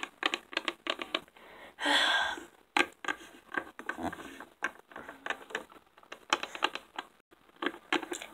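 Quick runs of light clicks and taps as hard plastic Littlest Pet Shop figurines are hopped along a tabletop, with a half-second scraping rustle about two seconds in.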